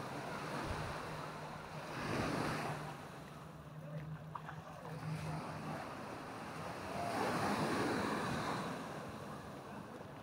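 Sea waves washing up on a sandy beach, surging twice, about two seconds in and again near the end. A steady low hum runs under the first two-thirds and then fades.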